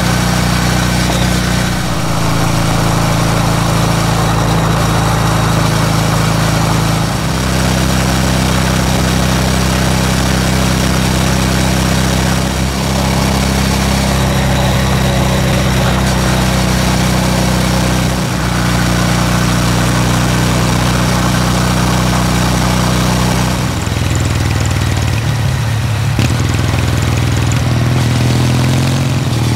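Kawasaki W800 Street's air-cooled parallel-twin engine running under way, heard from the rider's seat, with a steady rushing noise over it. The engine note holds steady, shifts a few times, dips about two-thirds of the way through and climbs again near the end.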